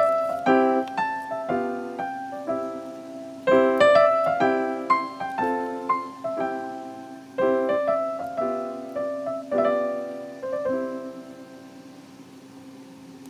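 Background piano music: short struck chords and notes in a light, bouncy rhythm, dying away near the end.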